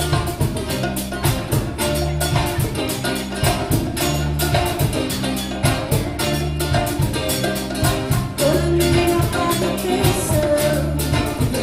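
Band music with a repeating bass line under busy, fast percussion.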